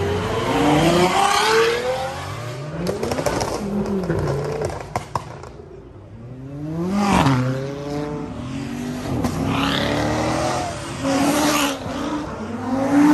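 Several supercars revving hard and accelerating past one after another, their engine notes rising through the revs and falling away. One car goes by about seven seconds in, its pitch rising and then dropping. A few sharp pops come about three to five seconds in.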